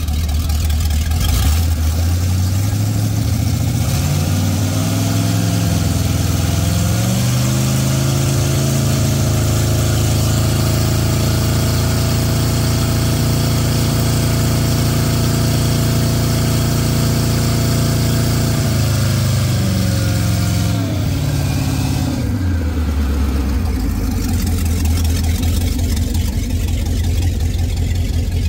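MerCruiser 350 MPI V8 sterndrive engines idling, then revved up in steps about four seconds in, held at raised rpm for about ten seconds, and let back down to idle near the end: a run-up during an engine inspection.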